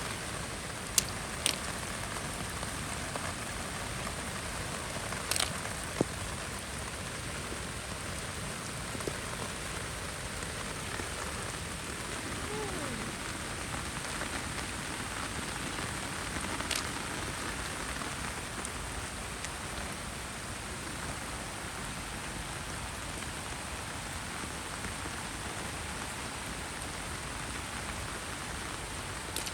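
Heavy rain falling steadily, a constant hiss of drops, broken by a few sharp taps in the first several seconds and one more about halfway through.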